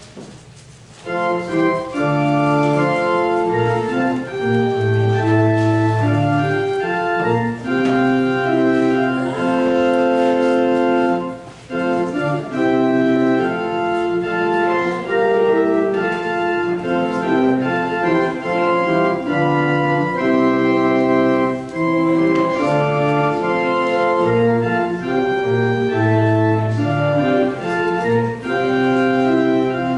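Church organ playing slow, sustained chords with a melody line, starting about a second in and continuing with only a brief break near the middle.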